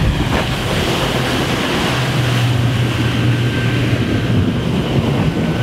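Motorboat running at speed on open water: a steady low engine hum under wind noise on the microphone and the rush of water and spray.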